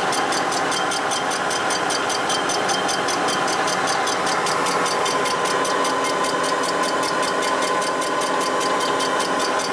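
Block surfacing machine running, its single-bit cutter taking a pass across the cast-iron deck of a Ford four-cylinder flathead block. It makes a steady hum with a fast, even ticking.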